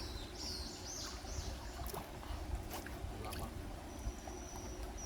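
Mountain stream water running under a steady low rumble. Three quick high chirps come about half a second in, and a thin, high steady tone sounds in the last second.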